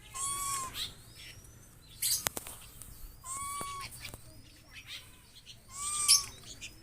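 Birds in an aviary calling: a short arching call, with a hiss above it, comes three times about three seconds apart, with faint high chirps in between. A sharp click sounds a little after two seconds.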